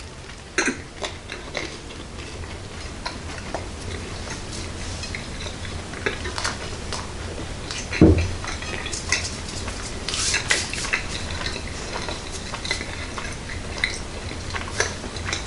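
A person chewing a big mouthful of soft white bread, with many small scattered clicks and mouth noises over a low steady hum. About eight seconds in comes a single loud knock, the loudest sound of the stretch.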